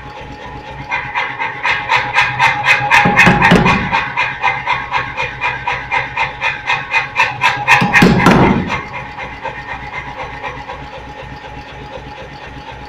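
Power hammer forging a red-hot steel bar end into an elliptical ball in a closed die: a fast, even run of ringing blows, about four to five a second, with two heavier, deeper thuds, the second as the blows stop about eight and a half seconds in. The hammer's motor hums steadily before and after.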